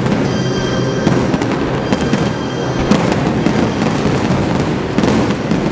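A fireworks barrage: many shells bursting in quick succession, a dense run of sharp bangs and pops over a continuous rumble.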